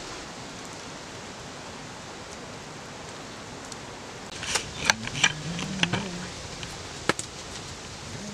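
Wood campfire: a steady hiss, then from about four seconds in a handful of sharp crackles and pops as the logs burn.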